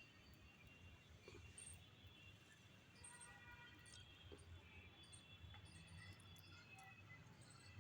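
Near silence with faint, scattered high chirps of small birds over a low hum.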